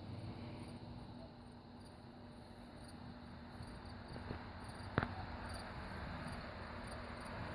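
Crickets chirping faintly in a steady repeating pattern over a low, steady hum, with one sharp click about five seconds in.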